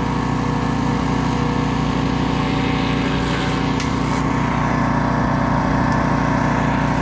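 Garden wood chipper running steadily with an even mechanical hum, with a few brief clicks near the middle.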